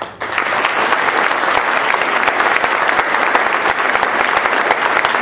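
Audience applauding, many hands clapping. It starts suddenly and holds steady.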